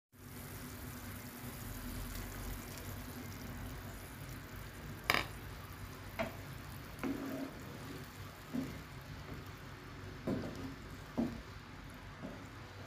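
Liquid stirred in a cooking pot, with a handful of separate knocks of a utensil against the pot. The first knock, about five seconds in, is the loudest.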